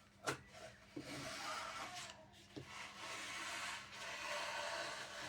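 A light click, then three long scraping strokes across the paper backing of a sheet of vinyl wrap, each about a second long, made while it is marked out and cut to size.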